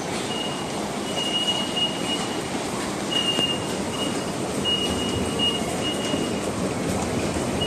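Crowded railway-station ambience: a steady din of commuters and rail traffic, with a thin high-pitched tone sounding on and off.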